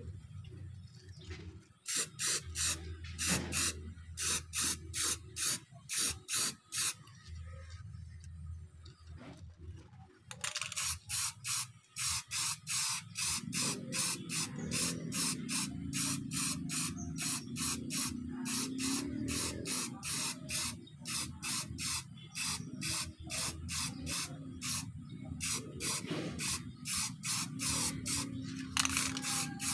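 Aerosol spray paint can sprayed in short, rapid bursts, about two a second, laying a black top coat on a bike crankset. The bursts pause for a few seconds after the first run, then resume almost without a break.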